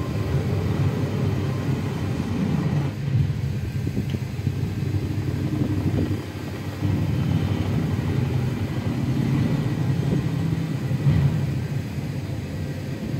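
Low, steady rumble of helicopters flying through a storm, a film soundtrack heard through a TV's speakers.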